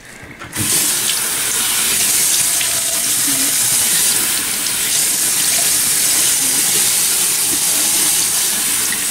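A bathroom sink faucet is turned on about half a second in and runs steadily, water splashing into the basin as facial product is rinsed off a face.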